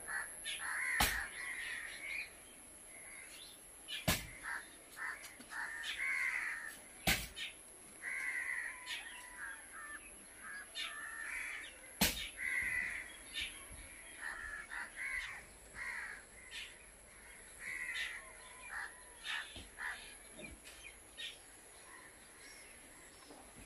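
Crows cawing over and over, with a few sharp clicks.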